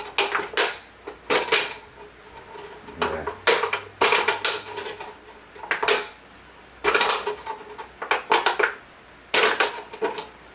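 Plastic bottle crackling and clicking in short clattery bursts, about one every second or two, as holes are punched through its walls.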